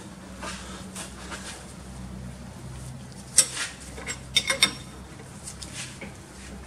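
Steel spanner clinking on a male JIC reusable hydraulic hose fitting held in a bench vise as the fitting is worked: one sharp clink about halfway through, then three quick clinks close together a second later.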